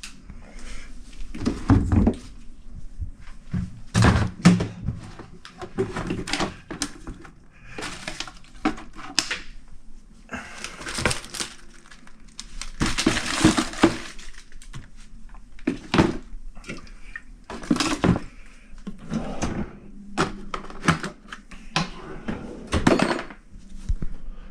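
Objects being handled: a series of irregular thunks, clunks and knocks, with a longer stretch of rustling about halfway through.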